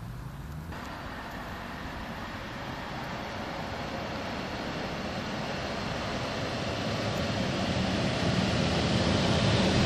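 Northern Class 142 Pacer diesel multiple unit approaching along the track, its engine and wheels on the rails growing steadily louder.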